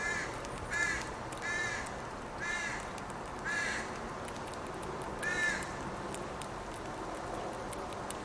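A crow cawing, six short harsh caws at uneven intervals over the first five and a half seconds, then stopping.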